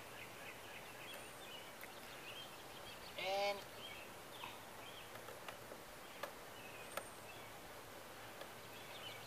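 Faint outdoor ambience with small birds chirping, and two sharp clicks about six and seven seconds in as a plastic garden-hose quick-disconnect fitting is handled and pushed together.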